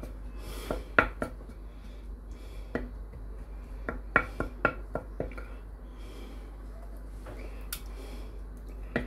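Wooden spoon scraping and tapping against the inside of a slow cooker pot while spreading mince sauce across the bottom: scattered knocks and clicks, most of them around four to five seconds in.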